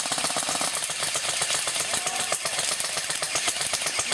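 Airsoft rifles firing on full auto: a fast, steady clatter of shots.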